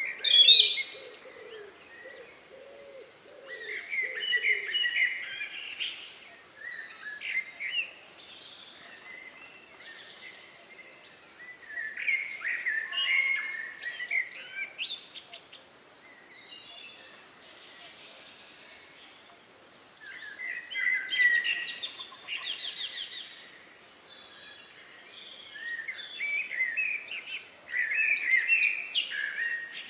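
Songbirds singing in the evening: bursts of varied, chirping song a few seconds long, coming every five to eight seconds with quiet gaps between, over a faint steady high tone.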